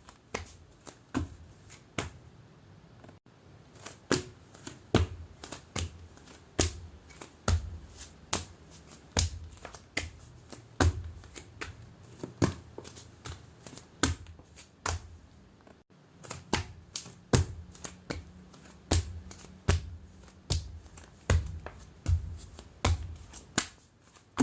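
Footsteps walking at a steady pace, a little more than one step a second, each step a sharp click with a low thud.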